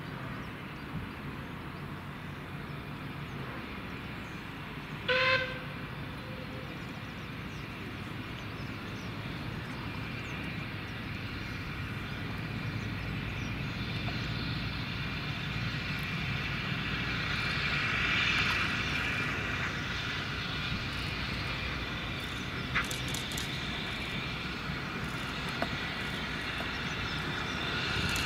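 Steam locomotive whistle, one short blast about five seconds in, from the Caledonian Class 439 0-4-4T tank engine No 419. After it the working locomotive and its two coaches grow steadily louder as the train approaches.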